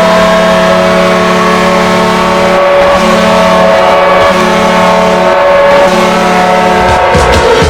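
Idaho Steelheads hockey goal horn sounding a loud, steady multi-tone blast that drops in pitch near the end.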